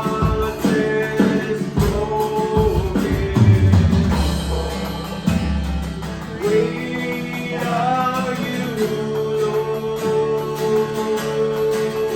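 Live worship band playing a slow praise song, with guitar and drum kit under sung melody lines.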